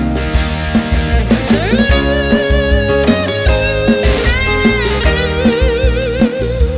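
Instrumental intro of a brega paraense song: band music with a lead electric guitar over drums and bass. The guitar melody slides up about a second and a half in and plays wavering vibrato notes near the end.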